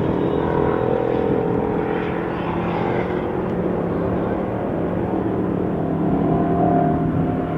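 Off-road race truck engine running steadily, its pitch shifting slightly up and down.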